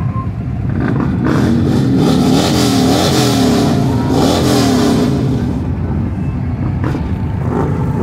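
Motorcycle engines running loudly, revved up and down a few times in quick swells.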